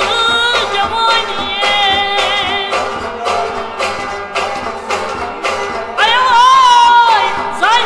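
Kashmiri folk song: a man singing with others joining in, over harmonium, bowed sarangi, plucked rabab and a clay-pot drum (matka) struck in a steady rhythm. A louder, high sung phrase comes about six seconds in.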